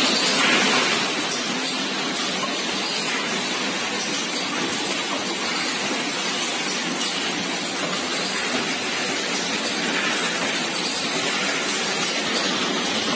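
Automatic powder filling and aluminium-cap sealing machine running: a steady, even hiss-like noise with no distinct clicks, a little louder in the first second.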